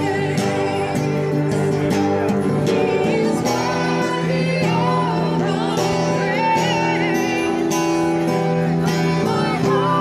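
Gospel worship song played through a PA speaker: a woman singing a melody over sustained instrumental accompaniment, continuous and steady in level.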